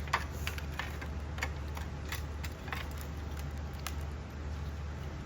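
Scattered light metallic clicks and clinks of a socket and ratchet working the caliper bracket bolts off a 14-bolt axle, over a steady low hum.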